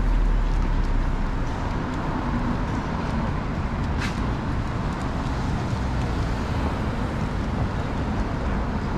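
Street traffic: the steady rumble of cars going by on a city road, heaviest in the first second, with a single sharp click about four seconds in.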